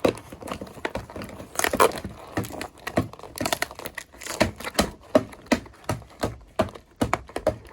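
Packaging of a Fail Fix doll being crinkled and torn open by hand: an irregular run of short crackles and rustles.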